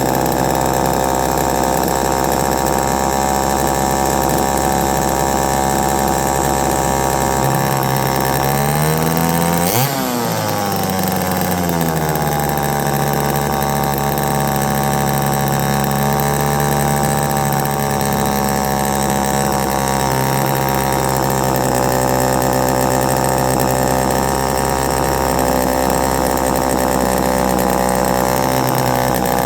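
Homelite EZ two-stroke chainsaw running on its own with no chain fitted, revved up once about eight seconds in and then dropping back to a steady run. It runs a little rich with the air filter on, which the owner prefers for these saws.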